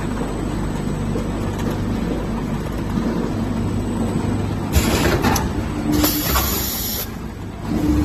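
Vertical packing machine for washing powder running with a steady low hum. About five seconds in, its pneumatic sealing-jaw cylinders let out two bursts of air hiss, the second lasting about a second.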